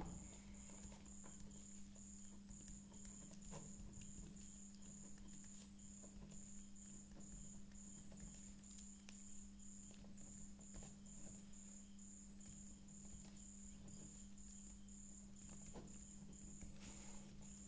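Near silence: faint scratching and tapping of a ballpoint pen writing on paper, over a steady low hum and a faint high-pitched pulse repeating about two and a half times a second.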